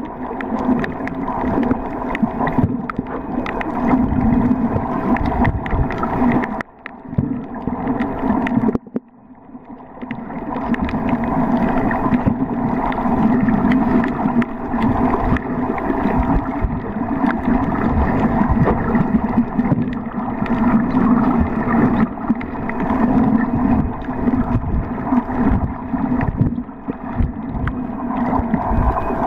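Muffled underwater water noise picked up by a submerged camera in rough, choppy water: a steady rushing and crackling with a constant hum under it. It drops away briefly about seven seconds in, then comes back.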